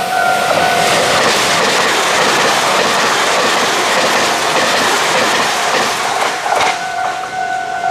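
Taiwan Railway TEMU2000 Puyuma electric multiple unit passing at speed: a loud rush of wheel and air noise with wheels clacking over rail joints. It eases near the end, and a steady high tone comes back through.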